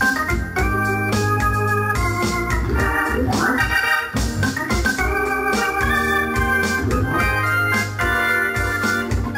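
Hammond A-100 tonewheel organ played: sustained chords that change about once a second over a steady bass, with a quick upward run a few seconds in.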